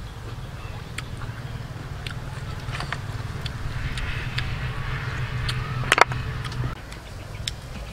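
River snail shells clicking and tapping against each other and the tray as the snails are handled and eaten, with one loud click about six seconds in. A low steady hum runs underneath and drops away about seven seconds in.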